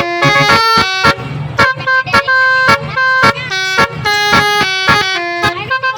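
Basuri musical air horn (telolet horn) playing a rapid melody: a string of pitched notes stepping up and down, some short, a few held longer, with sharp breaks between them.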